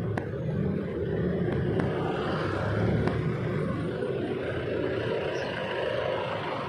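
Steady street traffic noise: the engines of jeepneys and vans running close alongside a moving bicycle.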